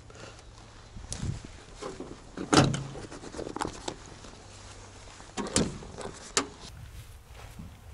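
Tarpaulin cover being unhooked from a tank's side: a handful of sharp clinks and knocks of its fastenings against the rusty metal track links, the loudest about two and a half seconds in.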